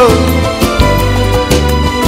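Song music between sung lines: a held vocal note dies away at the very start, then an instrumental passage with a steady bass and beat.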